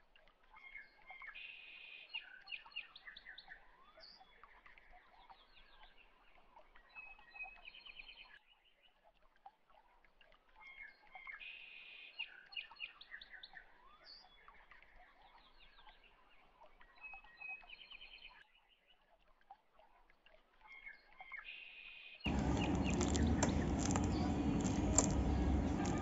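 Faint bird chirping in a pattern that repeats about every ten seconds, like a looped recording. About 22 seconds in, louder background music cuts in abruptly.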